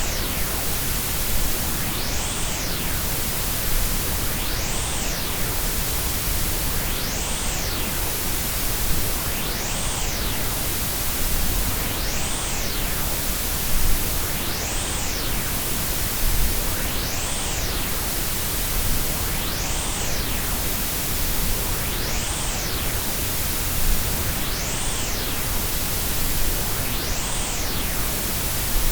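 Steady electronic hiss of combined white, pink and Brownian noise spread across all pitches. A faint whooshing sweep rises and falls in the upper hiss about every two and a half seconds.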